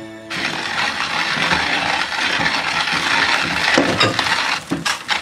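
Hand-cranked coffee grinder crunching coffee beans, a steady gritty rattle, mixed with light clinks of glass bowls and dishes. It starts abruptly a moment in, and a few sharp clinks stand out near the end.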